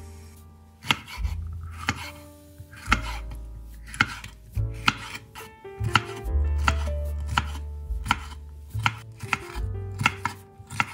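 Chef's knife dicing a red bell pepper on a bamboo cutting board: sharp knocks of the blade against the board. They come about once a second at first, then quicken to two or three a second from about halfway.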